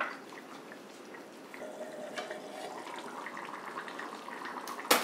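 Chickpea curry simmering in a steel pot on a gas stove, bubbling and crackling steadily, with one sharp knock near the end.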